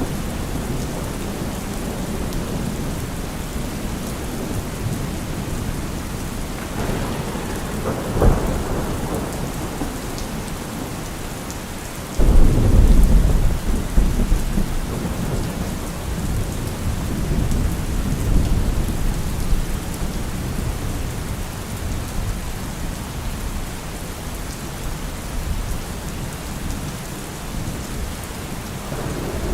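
Steady heavy rain with thunder: a short crack about eight seconds in, then a loud, sudden thunderclap about twelve seconds in that rumbles away over several seconds.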